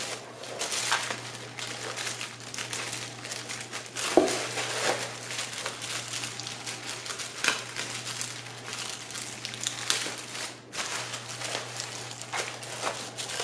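Bubble wrap and a plastic bag crinkling and rustling as hands handle a wrapped laptop screen panel, with irregular crackles throughout and a louder crunch about four seconds in.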